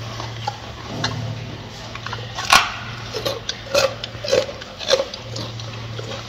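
Gorilla chewing lettuce, with several short crisp crunches, the loudest about two and a half seconds in, over a steady low hum.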